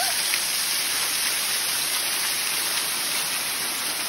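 A small waterfall pouring down a rock face and splashing onto the rock and stream below, a steady hiss of falling water.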